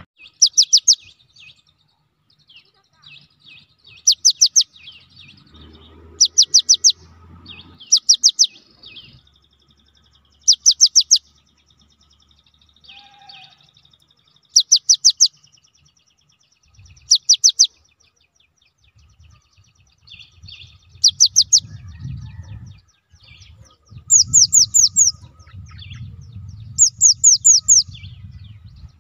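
Cinereous tit (gelatik batu) singing: loud, short phrases of four or five quick, high, falling notes, repeated about every two seconds, with softer twittering between them.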